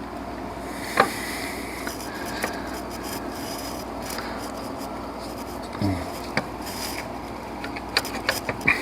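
Scattered clicks and knocks of metal parts and tools, with some rubbing and scraping, as the alternator and its bracket are worked into line in a car's engine bay. A short creak falls in pitch about six seconds in, and a quick cluster of clicks comes near the end.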